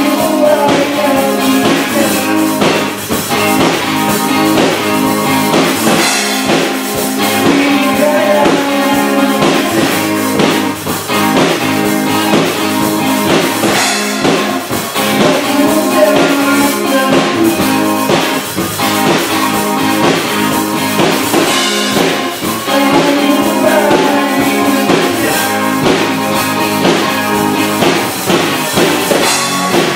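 A band playing a pop-rock song: acoustic and electric guitars playing chords over a drum kit keeping a steady beat.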